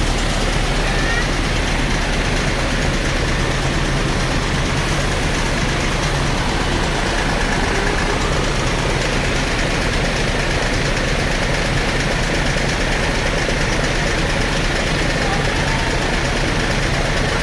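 Large bus's diesel engine idling steadily, with a background murmur of people talking.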